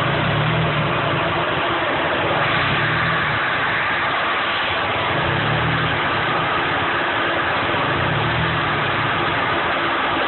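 Nissan SR20 'red top' four-cylinder engine idling rough, its idle hunting with a low surge about every two and a half seconds. It is running rich, which the owner puts down to a clogged O2 sensor.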